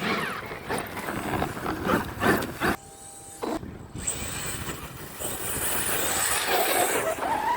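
Large electric RC monster trucks driving hard over rough ground, with tyres churning and knocking. The sound drops away briefly about three seconds in, then returns with a steady high whine over the tyre noise.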